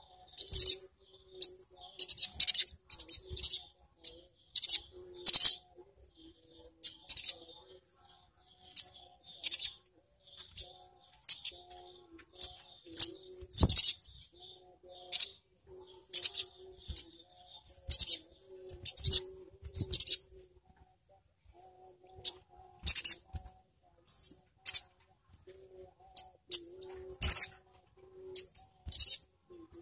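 Caged sogon (sogok ontong), a small sunbird, giving short, sharp, high-pitched rattling chirps in quick bursts, about one or two a second.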